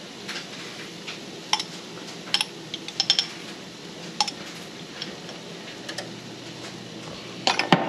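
A small spoon clinking against a glass jar of minced garlic and tapping in a frying pan, a dozen or so sharp separate clicks, over a faint steady hiss.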